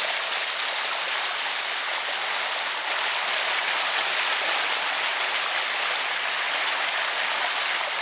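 Water from a pond spilling over a concrete overflow and falling down a concrete spillway into a pool below: a steady, loud rushing splash.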